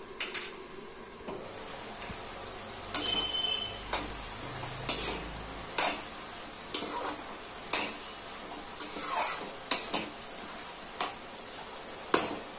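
Metal spatula scraping and clanking against a steel kadhai as diced bottle gourd is stirred while it fries, about one stroke a second, over a steady sizzle.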